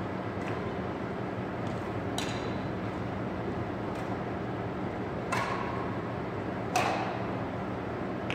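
Badminton rackets striking a shuttlecock in a rally: about six sharp clicks, roughly one every second and a half, the loudest two late on, over a steady background hum.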